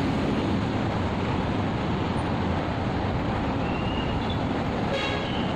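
Steady roar of city road traffic, with a brief high tone near the end.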